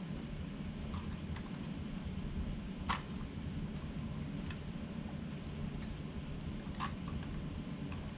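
Light plastic clicks and taps as the folded arms of a DJI Mini 2 drone are swung open by hand, about half a dozen, the sharpest about three seconds in, over a steady low room hum.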